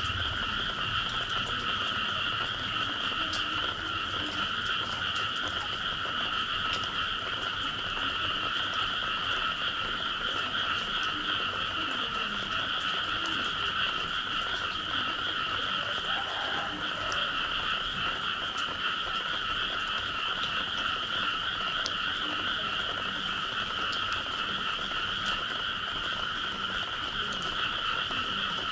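Dense chorus of frogs calling after rain: a steady, unbroken high trilling din, with fainter, lower croaks scattered through it.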